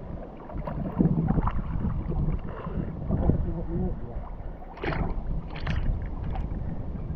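Irregular water sloshing and splashing as a person wades in a river, feeling along the bottom for freshwater mussels, with low rumble from the moving water.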